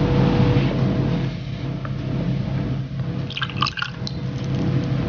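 Water poured from a small bowl into a bowl of oyster sauce and starch, trickling and splashing in a few brief spatters near the end, over a steady low hum.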